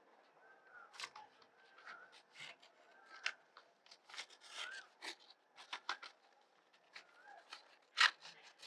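Scissors snipping along a paper strip in a series of short cuts, the strongest about eight seconds in. A bird's short chirp repeats faintly in the background.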